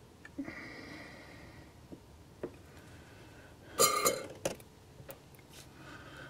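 Quiet workbench sounds while a wire is soldered onto a DCC decoder board: a faint hiss, a few small clicks of handling, and one short, louder rough burst of noise about four seconds in.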